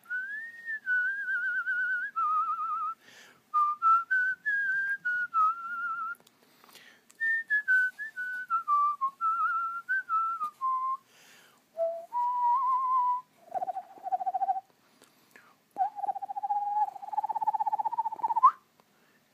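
A person whistling a wandering tune in short phrases, separated by brief pauses. Later the notes drop lower and waver rapidly in a warble, ending in a quick upward slide.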